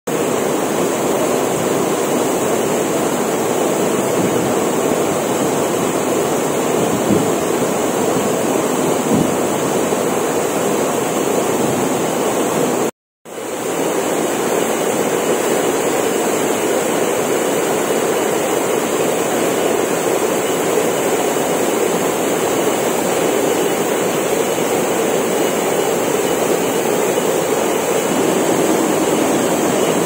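Waterfall pouring steadily into a rock plunge pool, a constant rushing of water, with cicadas droning in a steady high note over it. The sound cuts out for a moment a little before halfway, then fades back in.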